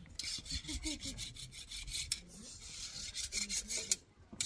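Rapid repeated scraping strokes, stopping near the end.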